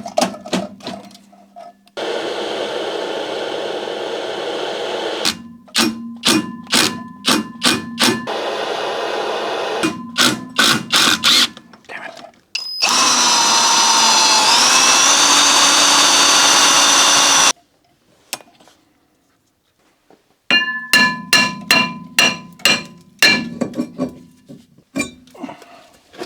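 A handheld power tool runs in several bursts of a few seconds each, its whine rising in pitch once during the longest burst. Between the bursts come quick series of sharp clicks and taps, as when working loose the small screws that hold a brake disc.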